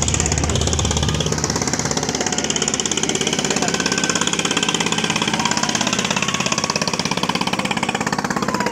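Motorised wooden river boat's engine running with a fast, steady chugging; the deep low thrum eases off about a second in.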